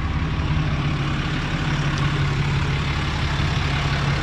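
A 2018 Ram 3500's 6.7-litre Cummins turbo-diesel idling steadily, a quiet idle for a diesel.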